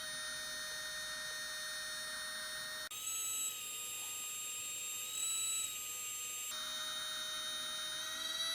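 Steady electric whine of a 3Doodler 2.0 3D pen's motor and fan as it feeds plastic filament. The pitch jumps up about three seconds in and drops back to the first pitch about three and a half seconds later.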